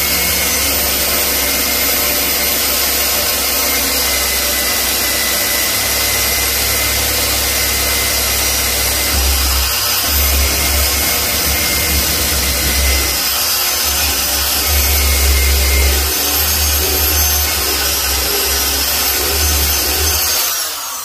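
Electric drill running steadily as it bores a screw hole through a deer's antler skull cap, its load shifting now and then in the middle. The motor stops at the very end.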